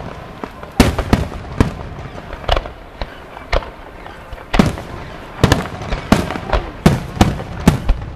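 Aerial firework shells bursting overhead in quick, irregular succession: a string of sharp bangs, sometimes two close together, over a continuous rumble of further bursts.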